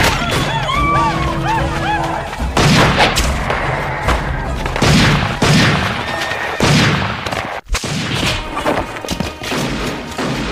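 Film battle soundtrack: horses neighing in the first two seconds, then a run of heavy, echoing gunshots, about seven in all, over orchestral score.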